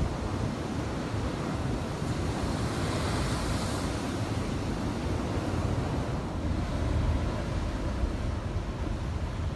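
Heavy typhoon swell breaking against a harbour breakwater, with strong wind rumbling on the microphone. A breaking wave's rush and hiss swells about two to four seconds in.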